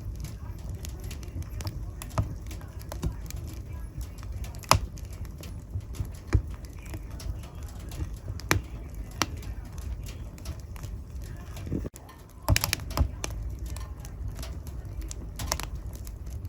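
Wood fire in a fireplace crackling: a steady low rumble of burning with scattered sharp pops and snaps, a few of them louder, including a small cluster about three-quarters of the way through.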